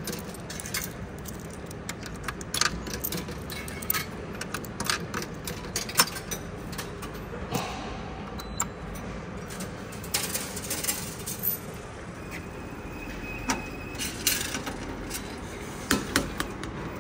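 Coins being fed into a railway ticket vending machine and dropping inside it: a series of sharp metallic clicks and clinks, with a faint short tone a little past the middle.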